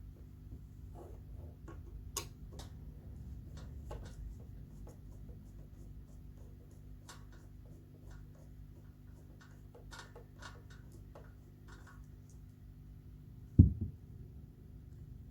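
Scattered small clicks and scrapes of a screwdriver, screws and metal parts being handled while a ceiling fan is taken apart, over a steady low hum, with one heavy thud near the end, the loudest sound.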